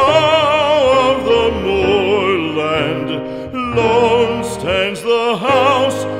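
Solo classical-style singing with strong vibrato on long held notes, over instrumental accompaniment; a short break between phrases about halfway through.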